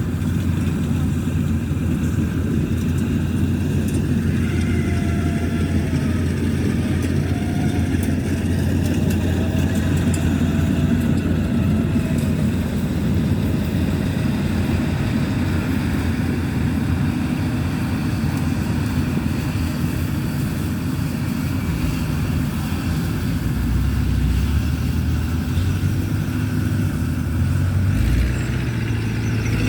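Combine harvester's engine running with a steady low drone; the drone changes pitch near the end.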